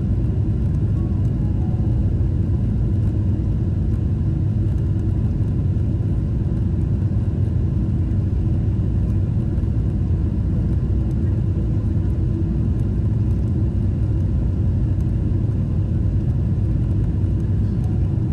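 Steady low rumble of engine and airflow noise inside the cabin of a Boeing 777-300ER as it descends towards landing.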